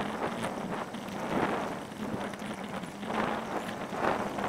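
Wind buffeting a small handheld camera's microphone as it moves, a rough rushing noise that swells in irregular gusts.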